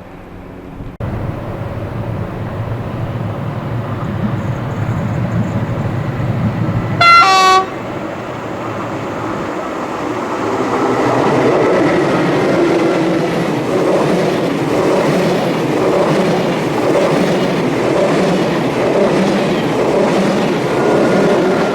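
Train approaching at low speed, sounding one short horn blast about seven seconds in. The rumble of its wheels and running gear then grows louder as it comes past.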